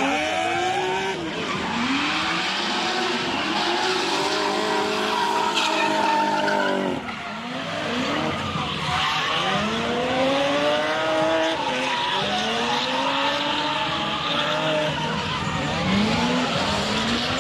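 Drift car engines revving hard, the revs rising and falling again and again, with one longer held run that drops off about seven seconds in. Tyres squeal as the cars slide.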